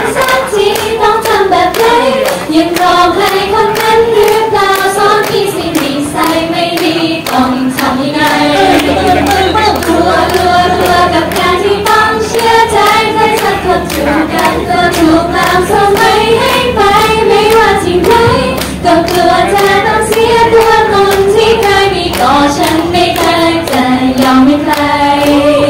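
A group of young women singing a Thai pop song together in unison, clapping their hands in a steady rhythm to the beat.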